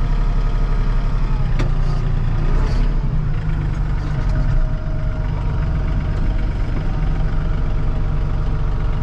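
A Yanmar YT235 tractor's diesel engine runs steadily, heard from inside the cab, with a single sharp knock about two seconds in.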